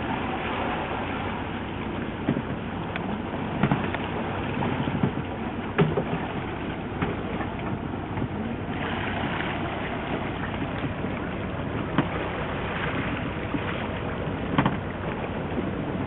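Steady hum and rush of a fishing boat at sea, its motor running under wind and water noise, with a few sharp knocks along the way.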